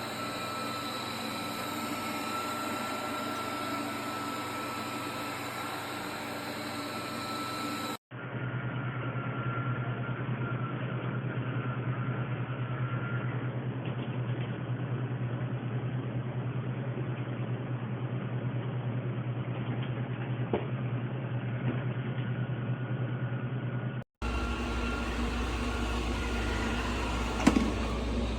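Robot vacuum cleaner running, its suction fan and brushes making a steady whirring hum with a thin steady whine. The sound changes abruptly twice, once about a third of the way in and again near the end, as one clip gives way to another.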